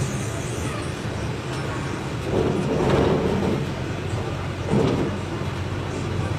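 Volkswagen 17.230 ODS bus's diesel engine running steadily, with a louder swell of noise about two and a half seconds in and a shorter one near five seconds.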